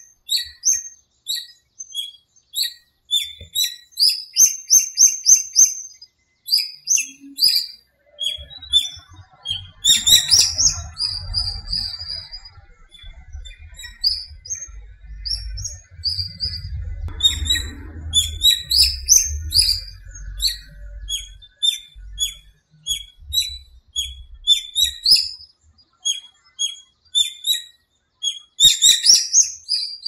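Dawn chorus of small songbirds: many quick, high chirps and short trilled phrases from several birds overlapping, several a second. A low rumble runs underneath through much of the middle.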